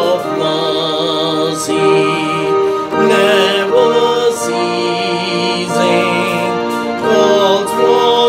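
A hymn sung with instrumental accompaniment, the voice holding long notes with vibrato and moving to a new note every second or so.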